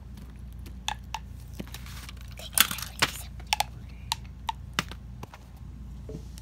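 Small plastic fidget toys being handled and set down on a paper sheet: scattered light clicks and taps, with a short louder rustle of paper and handling about two and a half seconds in.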